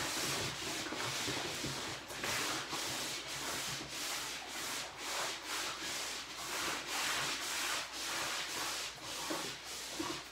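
Labrador retriever sniffing along a wood floor for leftover puppy food, a rhythmic snuffling and rubbing about twice a second.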